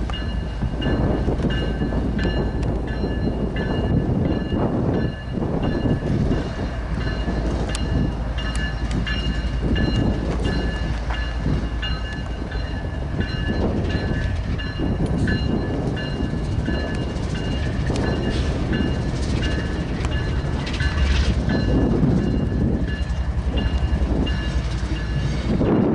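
Freight train rolling past: the cars rumble and clatter over the rail joints, with a steady, high, ringing whine over it.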